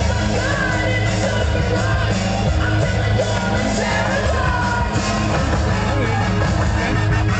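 Loud rock music with a singing voice, steady bass and yells over it.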